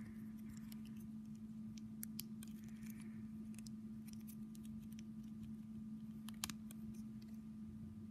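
Faint scattered clicks and ticks of fingers handling a small plastic Lego minifigure and its parts, the sharpest about six and a half seconds in, over a steady low hum.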